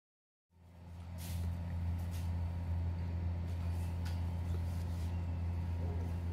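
A steady low engine hum, starting about half a second in, with a few faint clicks on top.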